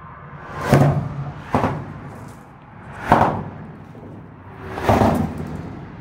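Car tyres clunking over a bridge expansion joint, heard from beneath the deck. There are four heavy knocks: two close together about a second in, then one at about three seconds and one at about five. Most come at the end of a swell of tyre noise from an approaching car.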